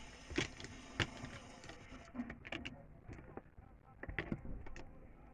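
Scattered light clicks and taps of small objects, such as nail polish bottles, being handled on a table: about half a dozen separate knocks spread unevenly over a few seconds, over a low background hiss.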